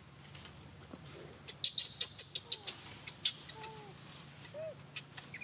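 Animal calls: a quick run of about nine sharp, high chirps over a second and a half, then a few short squeaky calls.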